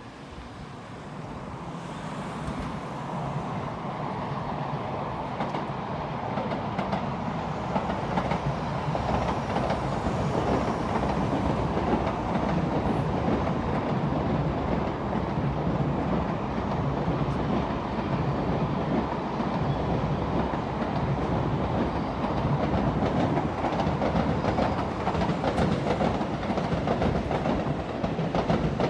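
Train passing on the rails, wheels clattering. The noise builds over the first several seconds, then holds steady.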